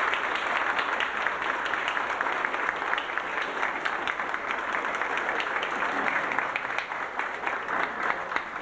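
Audience applauding: a dense run of hand claps from a roomful of people, thinning out and fading toward the end.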